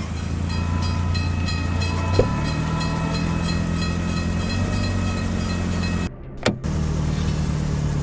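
A vehicle engine running steadily with a low hum, broken by a brief drop-out about six seconds in.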